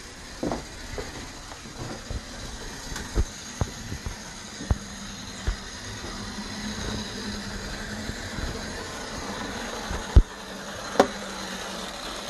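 Small electric motor of a Lionel HO-scale Burlington Northern diesel model locomotive running along the track with a steady whir, broken by a few sharp clicks, the two loudest near the end. The locomotive runs a little rough and has a little trouble.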